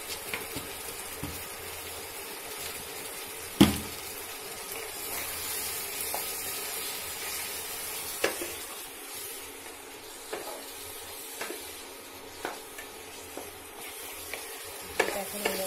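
Spiced mutton sizzling in oil and masala in a kadai while being browned and stirred with a wooden spatula. The spatula knocks against the pan now and then, with one sharp knock a little under four seconds in.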